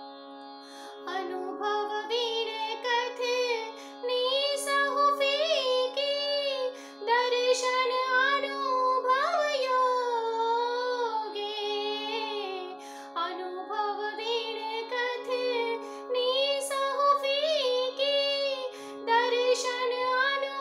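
A woman singing a Jain stavan (devotional hymn) solo in a high, ornamented voice, in phrases of a few seconds with short breaks between them, over a steady drone held underneath.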